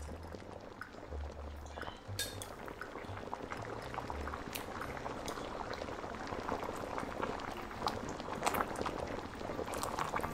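Kimchi stew boiling hard in a stainless-steel pan, a dense crackle of bursting bubbles, with a wooden spoon stirring through it near the end.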